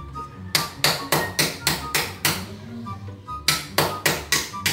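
Hammer driving a steel chisel into a skim-coated cement wall, sharp metal-on-metal strikes at about four a second: five strikes, a pause of nearly two seconds, then five more. The wall is being scored rough so that tile adhesive will grip.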